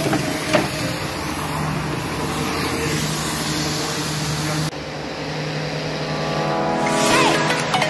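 Electric pressure washer running, its motor humming steadily under the hiss of the spray jet, changing abruptly about two-thirds of the way through. Music comes in near the end.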